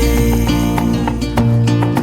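Background music: an instrumental passage with plucked guitar over a bass line and a steady beat.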